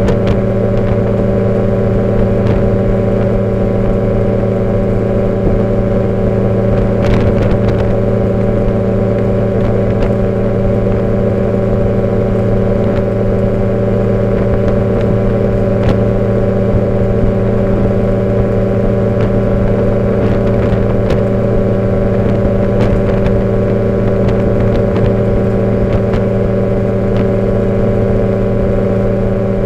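Light aircraft's engine and propeller droning steadily in level flight, one unchanging pitch, with wind rushing over the outside-mounted microphone.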